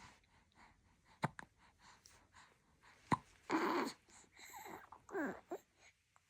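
Newborn baby hiccuping: two sharp hiccups, about a second and about three seconds in, followed by a breathy huff and two short baby noises that fall in pitch.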